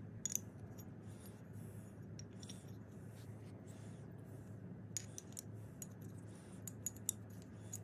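Light clicks and clinks of small metal jigsaw parts being handled and fitted together, a shaft being slid into its cast aluminium housing. There are a couple of clicks near the start and a run of them in the second half, over a steady low hum.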